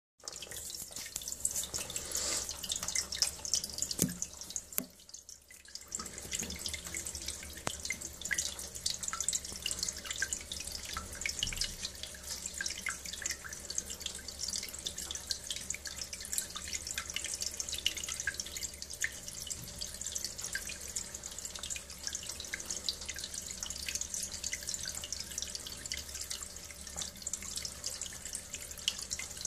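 Rinse water from a heating-circuit desludging flush running out of a hose into a sink, splashing and dripping steadily. The sound briefly drops away about five seconds in.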